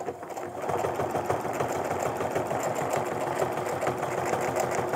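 Domestic sewing machine running steadily at an even speed, its needle stitching through a quilt sandwich with a ruler foot.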